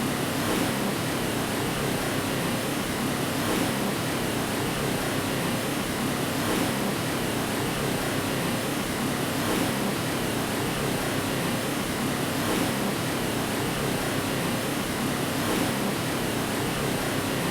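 Steady white noise for lulling a baby to sleep: an even, unbroken hiss with faint swells about every three seconds.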